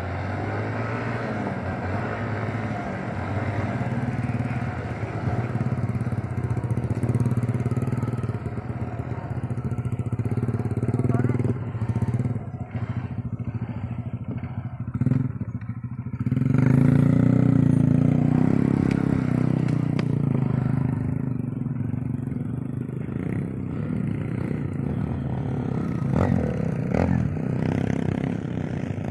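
Small single-cylinder four-stroke trail motorcycle engine running and revving, louder and higher from about halfway through.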